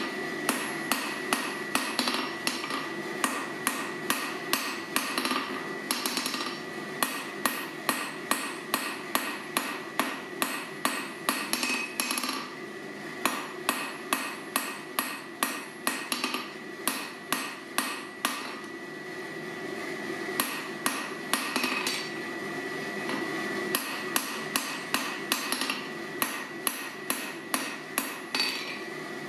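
Hand hammer striking red-hot steel on an anvil, drawing out the taper of a forged punch: a steady run of blows about two a second, broken by a few short pauses.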